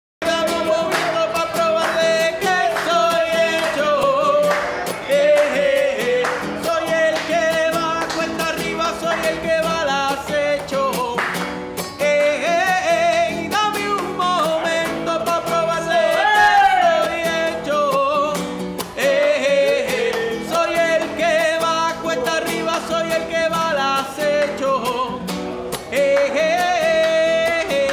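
A man sings a Spanish-language song, accompanying himself on a nylon-string classical guitar that he strums and plucks. The music cuts in abruptly at the start.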